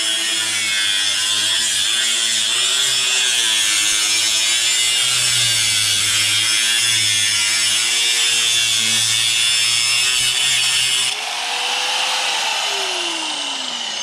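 Angle grinder with a cutoff disc cutting through aluminum siding: a loud, steady cutting noise, the motor's pitch wavering under load. About 11 seconds in the disc leaves the cut, and near the end the motor winds down with a falling whine.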